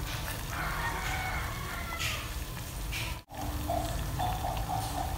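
Chickens clucking and calling in the background over the low steady noise of a pot boiling on the stove. The sound drops out abruptly for a moment about three seconds in, then a run of short clucks follows.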